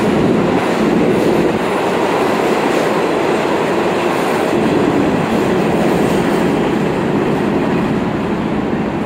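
Loud, steady rumble and rattle of a subway train running on the rails.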